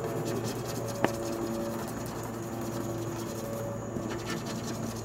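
Scratch-off card being scratched off by hand on a glass tabletop: a steady rasping made of many quick short strokes, with one sharp click about a second in.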